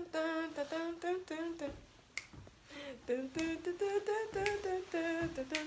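A person humming a tune without words, holding short steady notes, with a few sharp finger snaps.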